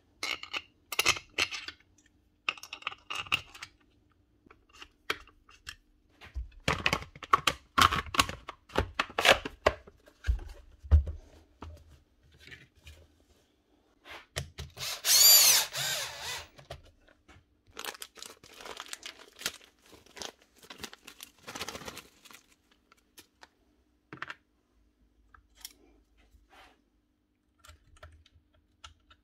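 Clicks, knocks and rattles of metal and plastic parts as a demolition hammer's housing is bolted together. About halfway through, a power driver runs for roughly two seconds tightening a bolt, the loudest sound here.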